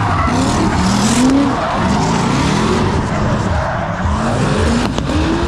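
A drift car's engine revving hard, its pitch climbing again and again as the throttle is worked, over the hiss and squeal of tyres sliding on the track.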